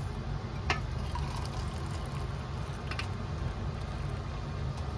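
Steady low rumble and hiss of a steel pot of water with whole spices heating on the stove, with two faint clicks.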